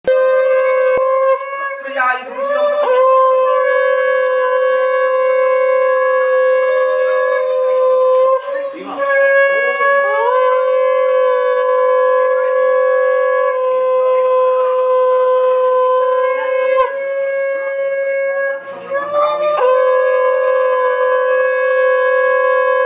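Conch shell (shankha) blown in four long blasts on one steady held note, with short breaks between them: the traditional auspicious call of a Bengali Hindu puja.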